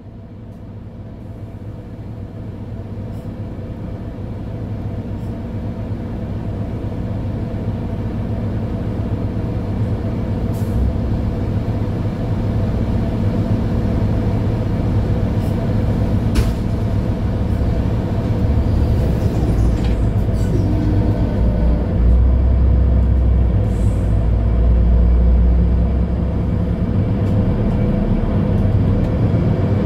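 Mercedes-Benz Citaro C2 Ü Hybrid bus running steadily, its engine swelling louder over the first dozen seconds. A few sharp clicks come through, and a deeper rumble comes in about two thirds of the way through.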